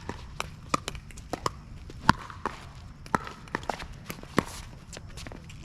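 Pickleball rally: paddles striking the plastic ball in sharp, irregular knocks, the loudest about two seconds in, mixed with the ball bouncing and players' footsteps on the court.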